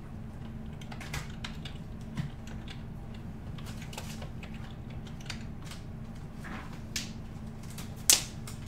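Typing on a computer keyboard: irregular light key clicks, with one sharper, louder click near the end, over a steady low hum.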